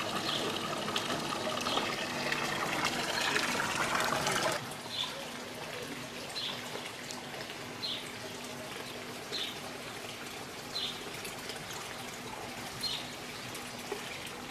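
Running water trickling, louder for the first four or so seconds and then dropping suddenly to a softer flow. Over the softer part a bird gives a short high chirp about every one and a half seconds.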